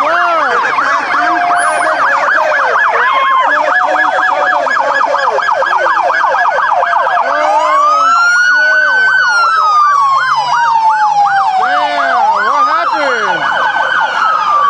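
Several police car sirens sounding at once, their fast yelping tones overlapping throughout. A slow wail rises and falls twice in the second half.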